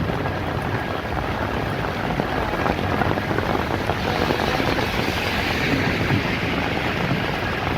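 Heavy rain pouring steadily on a flooded street, mixed with the low rumble of traffic. A hiss swells for a couple of seconds around the middle.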